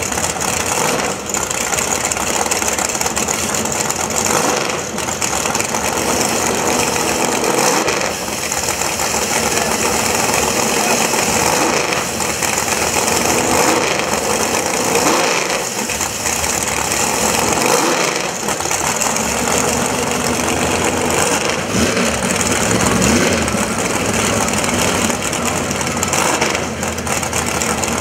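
Drag race car engines running loudly and steadily at the track, with no break.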